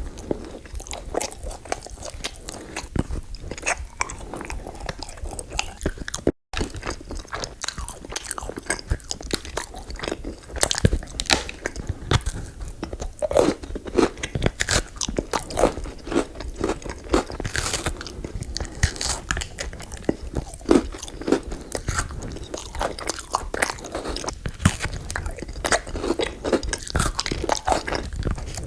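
Close-miked eating sounds: a person biting and chewing dessert, with crisp crunches and wet chewing, irregular throughout and broken by a brief silent gap about six seconds in.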